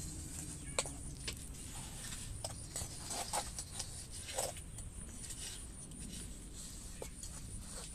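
Scattered light scrapes and clicks of a small metal hand tool and fingers packing dark moulding earth around a metal pattern in a wooden mould box for casting. The ticks come singly, with a short run of them a few seconds in.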